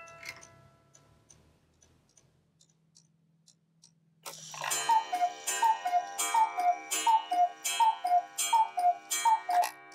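Black Forest cuckoo clock calling: after a few quiet seconds, the bellows-and-pipe cuckoo sounds its two-note call, high then low, about nine times in a steady rhythm, each call with a wooden click of the mechanism.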